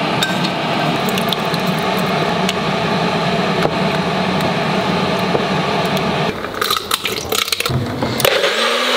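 Soup cooking in a saucepan, a steady wet sizzle with spoon stirring. About six seconds in come a few clicks and knocks as the blender jar is set on its base, and near the end the blender motor starts with a steady hum.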